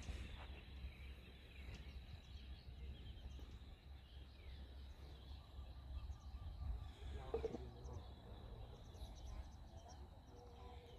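Faint outdoor ambience: a steady low rumble with faint, short high chirps scattered throughout.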